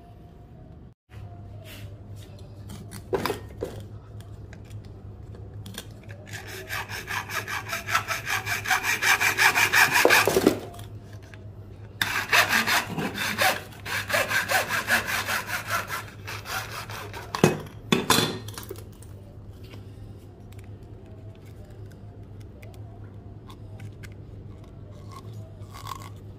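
Hacksaw cutting through grey PVC pipe in quick back-and-forth strokes, in two runs of about four seconds each, with a few sharp knocks from handling the pipe around them.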